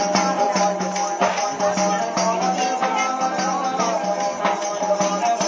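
Instrumental break in a Hindu devotional bhajan: a steady held melody over a fast beat of shaken rattle-like percussion.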